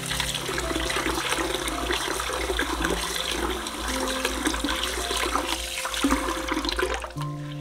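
Tap water pouring into a glass bowl of soaking basmati rice in a stainless steel sink, splashing as a hand swirls and rubs the grains to rinse them. The running water stops about seven seconds in.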